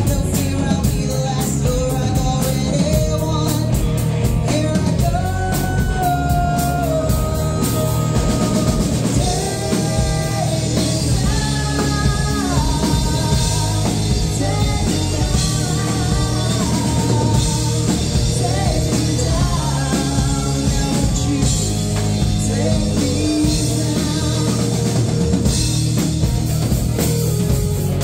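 Live rock band playing a song: a singer carrying the melody over a drum kit and electric guitar, loud and steady throughout.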